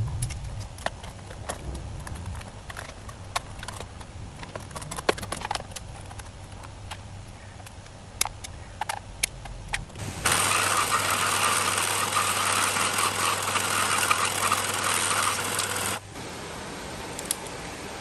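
Scattered light clicks and taps of hand work for about ten seconds. Then a bench belt sander runs for about six seconds, a loud steady hiss with a low motor hum, and cuts off suddenly.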